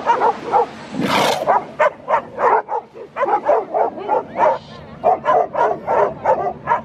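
Stray dogs barking rapidly and repeatedly at sea lions, about three barks a second. There is a brief rushing noise about a second in.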